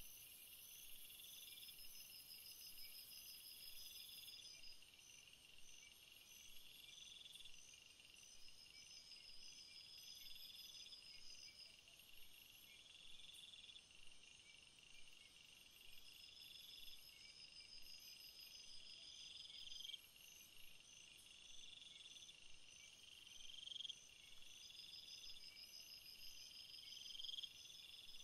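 Faint chorus of night insects, crickets among them: one call swells and cuts off about every two seconds, over steady higher trilling.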